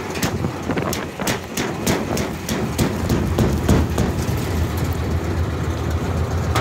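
A 1979 Chevrolet K20 pickup's engine idling low and steady after a cold start. Over it, for the first four seconds or so, comes a quick string of sharp cracks and taps as ice is broken along the edge of the stuck, ice-glazed hood.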